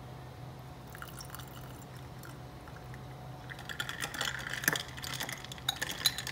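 Turmeric juice poured from a small glass into a glass of almond milk and ice. The pour starts a little past halfway, with a quick run of small splashes and clicks.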